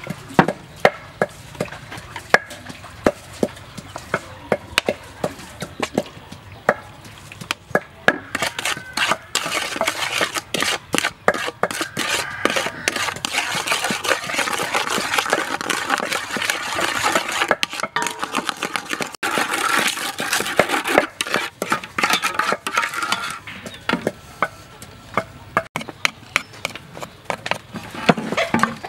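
Wooden spoon stirring a sauce in an aluminium bowl, scraping and clicking against the metal. Scattered taps at first, then a long stretch of brisk, continuous scraping, then scattered taps again.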